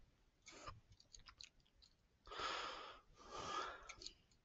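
Faint breathing close to the microphone, two slow breaths in the second half, with a few soft computer-mouse clicks before them.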